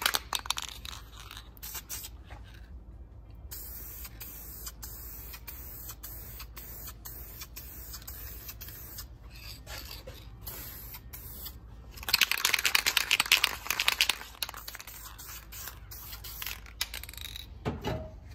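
Aerosol spray can of purple Metalcast paint: the mixing ball rattles as the can is shaken at the start. About twelve seconds in comes a loud spray hiss lasting about two and a half seconds as the paint goes onto a metal valve cover.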